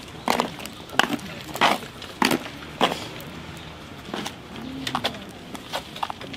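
Five sharp knocks in quick succession in the first three seconds, with pigeons cooing low later on.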